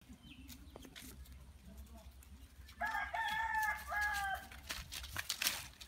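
A rooster crowing once, about three seconds in: one cock-a-doodle-doo of about a second and a half in several linked notes. Before and after it, scattered light crackles and rustles, like paws and footsteps on dry leaves.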